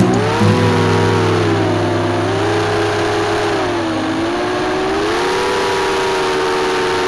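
A motor drone whose pitch slowly rises and falls several times, over a low steady hum that drops out about four seconds in.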